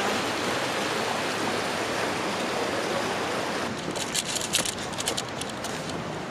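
A creek rushing over rock ledges, a steady hiss of running water. From about four seconds in, the water grows fainter and footsteps scuff and crunch on gritty rock and dry leaves.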